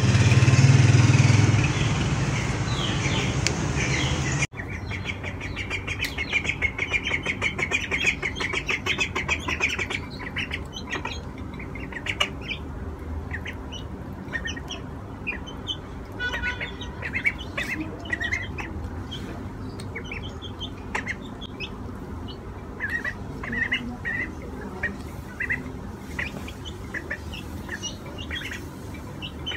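For the first four seconds a loud, full, steady sound that cuts off suddenly. Then ducklings and chicks peeping high and fast as they feed, densely at first and then in scattered bursts, with light taps of their bills on a glass plate.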